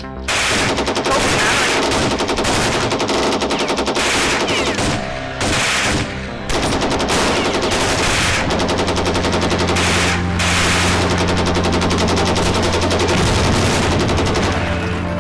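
Machine-gun fire sound effect: long rapid automatic bursts, broken by two short pauses about five and six seconds in.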